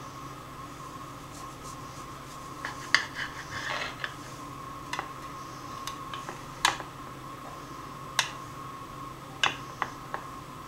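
Kitchen knife cutting through a pumpkin bundt cake, scraping briefly and clicking sharply several times against the serving plate beneath it. A faint steady hum runs underneath.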